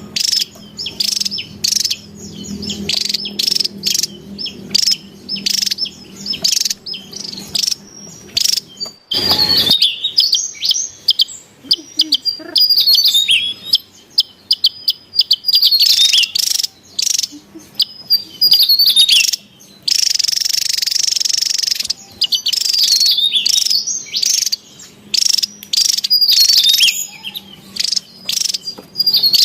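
Javan tesia calling noisily, with rapid strings of short, high chirps and trills, the agitated chatter used as a lure call for tesias. A short burst of hiss comes about 9 seconds in and again around 20 seconds.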